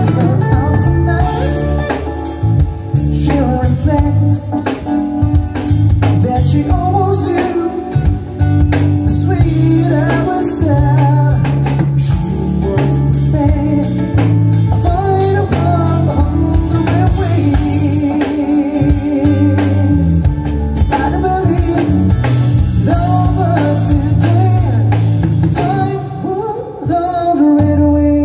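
A live band playing a song: electric guitar and drum kit, with a man singing.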